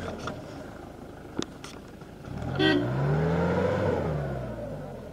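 Off-road jeep's engine working through thick brush, a sharp snap about a second and a half in, then the revs rising and falling back over the second half. A brief high toot sits right where the revs climb.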